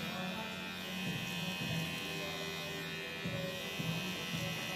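Electric hair clippers running steadily with a buzz as they cut hair.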